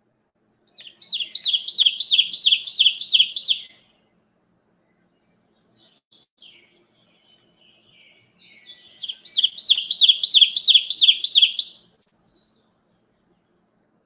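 Ovenbird song from a recording: two bouts of a rapidly repeated high phrase, about four a second, the second bout building in loudness, with fainter bird calls between them.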